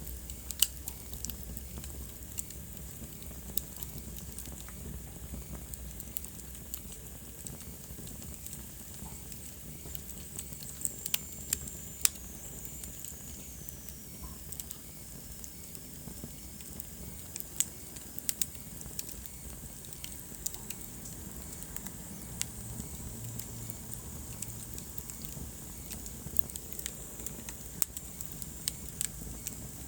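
Wood fire burning in a fireplace: a steady low rumble of flames with irregular sharp crackles and pops, and a faint high whistle that falls in pitch about eleven seconds in.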